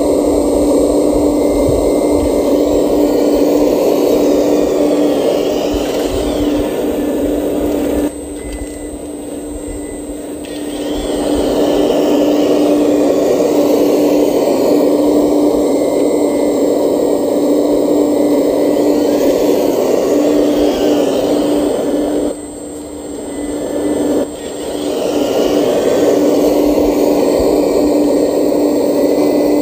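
Electric motors of a radio-controlled Liebherr R 970 excavator model running with a steady whine as it digs and swings. The whine drops away twice, for about two seconds each time, then comes back up.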